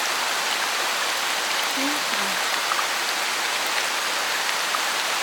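Steady rain-like hiss of a nature ambience recording. A faint, low two-note call, the second note lower than the first, repeats about every three and a half seconds.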